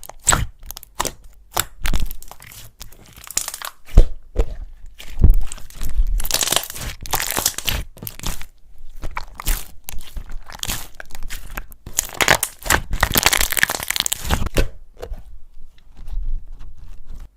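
Slime being squeezed and pressed by hand with a crunchy, crackling texture: a run of sharp clicks, then two longer stretches of dense crackling. The sound cuts off suddenly at the end.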